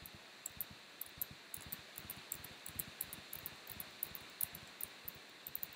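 Typing on a computer keyboard: quick, irregular key clicks, several a second, over a faint steady hiss.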